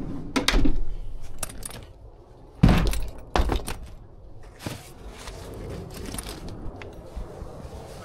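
Several knocks and clunks of things being handled, the loudest about two and a half and three and a half seconds in, with fainter clicks between them.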